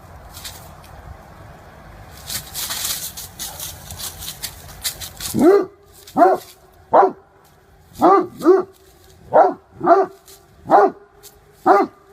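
A dog barking: nine short barks, each dropping in pitch, spaced less than a second apart and starting about five seconds in. Before the barking there is only background noise, with a brief hiss about two to three seconds in.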